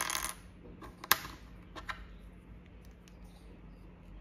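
Plastic Kinder Joy egg packaging being handled. There is a brief rustle with clicks at the start, a single sharp plastic click about a second in, and two softer ticks just under two seconds in. After that only a low hum remains.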